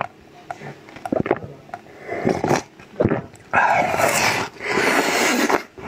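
Close-miked eating sounds: mouth noises and small clicks as a soft pink porous food is pressed to the lips, then two loud, dense stretches of biting and chewing, each lasting about a second, in the second half.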